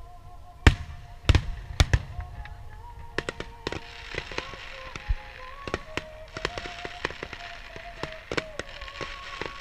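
Aerial firework shells bursting: several loud bangs in the first two seconds, then a dense crackling of many small reports, over steady background music.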